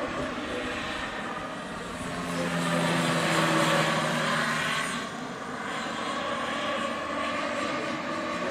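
Giant-scale radio-controlled AgustaWestland AW139 model helicopter flying by: a steady whine with rotor noise. It grows louder as it passes overhead, about three to four seconds in, then eases off.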